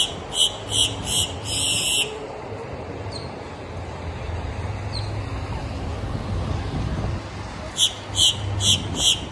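A grackle giving runs of short, harsh, high calls: about five in quick succession at the start, the last drawn out, then another run of about six near the end. A steady low traffic rumble lies underneath.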